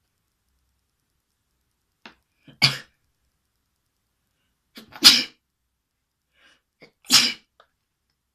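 A person sneezing three times, about two to two and a half seconds apart, each sneeze loud and brief with a faint small sound just before it.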